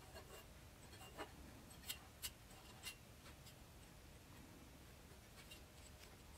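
Near silence, with a few faint metallic ticks in the first three seconds as steel rods are handled and slid through the square-tube uprights of a grill frame.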